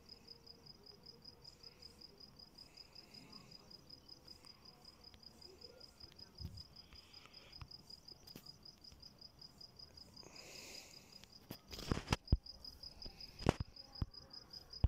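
A cricket chirping steadily in the background, a fast, even train of high chirps. A few sharp clicks come in the last few seconds.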